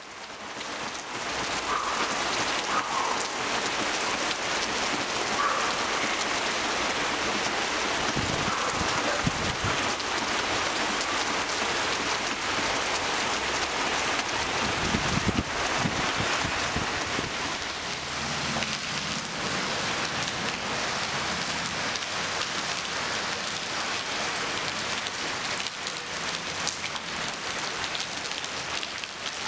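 Heavy rain pelting a flooded street, a steady dense hiss of drops hitting standing water. A car drives through the water about halfway through, adding a brief low rumble and swish.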